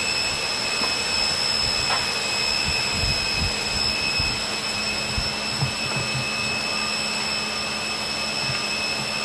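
Steady roar of a steam ship's fireroom machinery running underway, with constant high-pitched whine tones over it. A few dull low thumps come through as the men work on the bearing.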